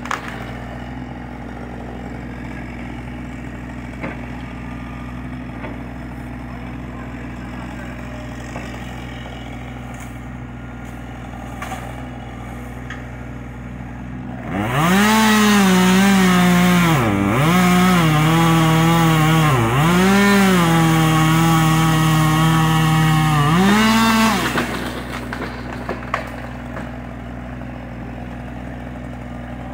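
Husqvarna 550 XP two-stroke chainsaw revving up about halfway through and running at full throttle for about ten seconds, its pitch sagging as it cuts and dropping briefly twice when the throttle is eased. An engine idles steadily underneath throughout.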